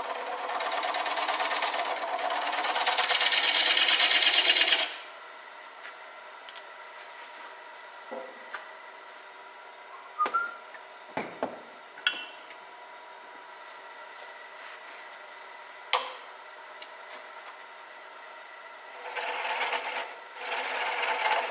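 Square carbide cutter scraping the inside of a spinning wooden blank on a wood lathe, a rough cut that grows louder for about five seconds and then stops. The lathe keeps running with a steady high whine and a few knocks, and a second scraping cut starts near the end.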